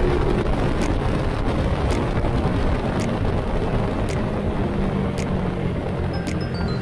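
Motor scooter engine running steadily while under way, with wind noise on the microphone.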